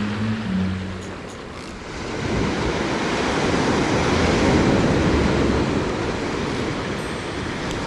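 Surf: a wave breaking and washing up a sandy beach, swelling from about two seconds in, loudest in the middle, then easing off.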